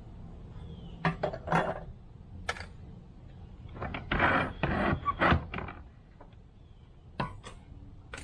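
Steel parts of a homemade slide-bolt latch clicking, clanking and scraping against each other as they are handled and worked. There are scattered sharp clicks, with a louder stretch of scraping and clanks about four to five and a half seconds in.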